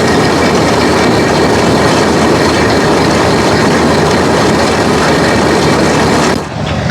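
Truck-mounted corn shucker running and processing corn: a loud, dense, steady mechanical clatter that stops suddenly near the end.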